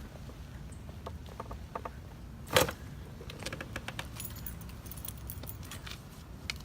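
A single loud crack about two and a half seconds in from a chiropractic spinal adjustment, with light clicks and rustling of hands and table before and after it.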